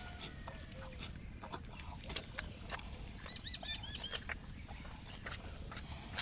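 Calf suckling at a cow's udder, making irregular wet smacking clicks. About three seconds in, a bird chirps a quick run of high notes.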